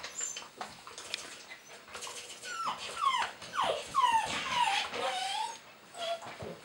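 Border collie whining excitedly: a quick run of about half a dozen short, high whines, each falling in pitch, starting a couple of seconds in and stopping about a second before the end.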